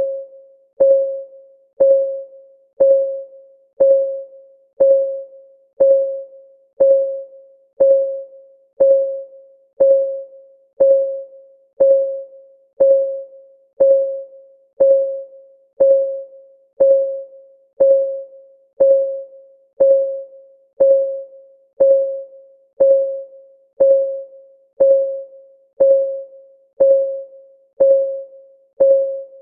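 Clock-ticking sound of a countdown timer, one even tick a second. Each tick is a short click with a brief ringing tone that dies away quickly.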